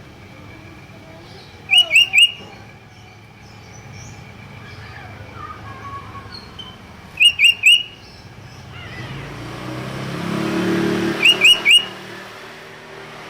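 Sooty-headed bulbul calling: three bursts of three quick, sharp notes each, about five seconds apart. A low rumble swells and fades in the background near the end.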